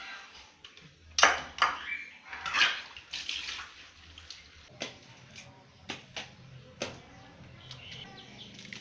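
Water splashing and running in short rushes, then several sharp clinks of dishware being handled, as in washing up at a sink.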